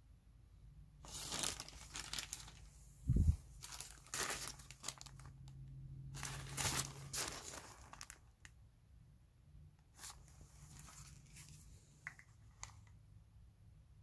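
Intermittent rustling and crinkling, like material being handled, in irregular bursts with sparser bits near the end. A dull thump about three seconds in is the loudest sound.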